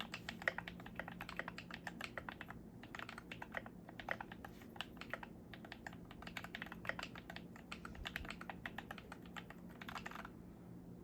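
Typing on a Glorious GMMK Pro mechanical keyboard with a brass switch plate, lubed Panda tactile switches and PBT keycaps: a fast, irregular run of key clacks that pauses briefly near the end.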